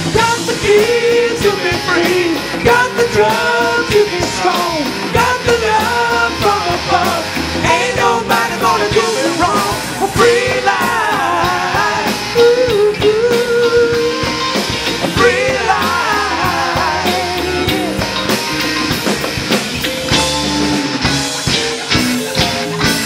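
Live rock band playing a song: drum kit, electric guitars and electric bass, with a voice singing over them.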